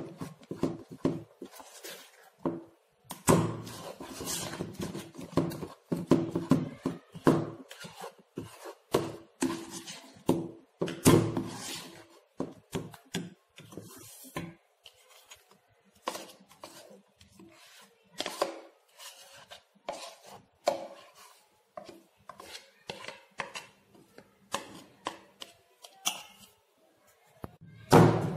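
Wire whisk beating runny cake batter in a bowl, a rapid, irregular run of clicks and scrapes against the bowl's side that thins out in the second half. The batter is being beaten fast just after Eno fruit salt has gone in.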